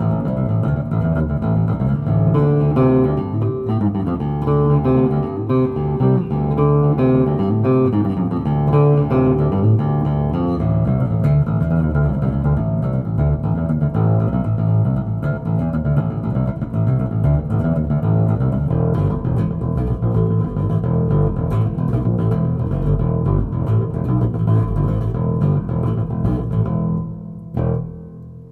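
Chinese copy of a Rickenbacker electric bass played with both pickups selected: a continuous run of plucked bass notes that dies away near the end.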